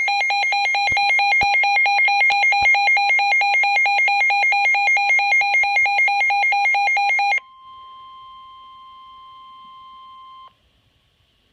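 A weather alert radio's electronic alarm warbling loudly and rapidly between two pitches for about seven seconds, then stopping. A quieter steady single tone follows, the NOAA Weather Radio warning alarm tone that announces a warning, and cuts off about three seconds later.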